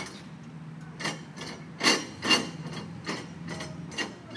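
Ratchet tie-down strap being cranked tight: a run of sharp metallic clicks about half a second apart, the loudest two near two seconds in, over a steady low hum.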